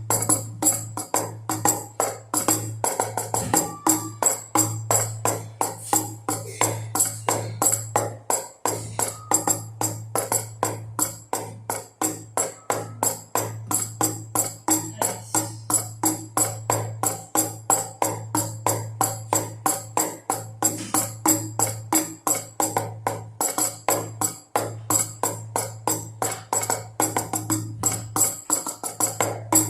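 Baby rattle shaken in a quick, steady rhythm together with two drums beating, a jingly percussion pattern over a steady low hum.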